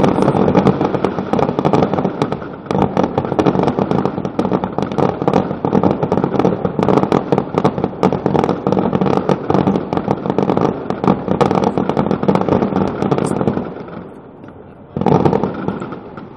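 Dense aerial fireworks barrage: rapid, overlapping bangs and crackling that run thick and loud, then fall away about fourteen seconds in before a short final burst of crackling.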